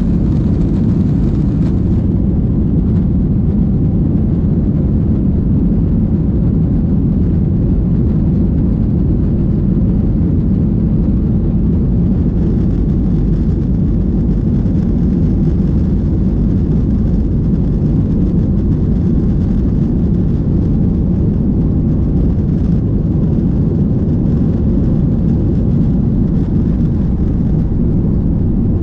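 Steady, loud, deep rumble inside the cabin of a Boeing 737-800: its CFM56 jet engines and rushing air. The higher hiss drops back about two seconds in.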